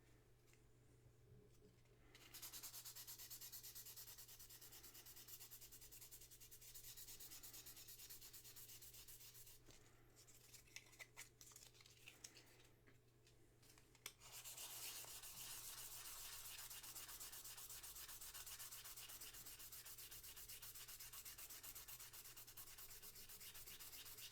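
Rapid, steady rubbing and scrubbing while cleaning parts of a vintage jeep headlight switch. It comes in two long spells, with a few small clicks and taps in the pause between them.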